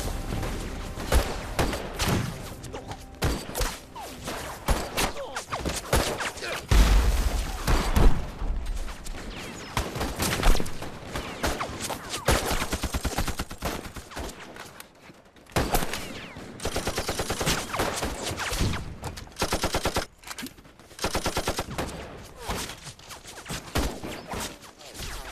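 Battle gunfire on a war-film soundtrack: scattered rifle shots and several rapid machine-gun bursts, with a deep boom about seven seconds in.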